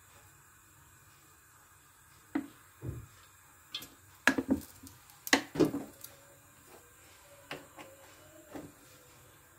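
A quiet moment, then a series of sharp knocks and clatters of kitchen things being handled and set down beside a pot, loudest a little past halfway, with a few lighter knocks after.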